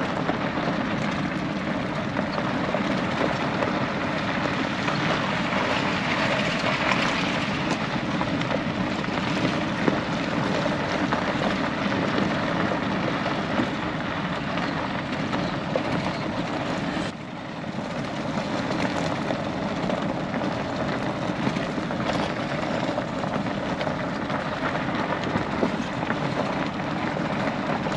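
A pickup truck driving slowly across a gravel lot, heard from inside the cab: steady engine hum under a constant wash of tyre and road noise, which dips briefly about two-thirds of the way through.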